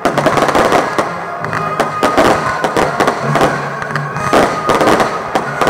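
Aerial firework shells bursting one after another, a dense run of bangs and crackles, with music playing underneath.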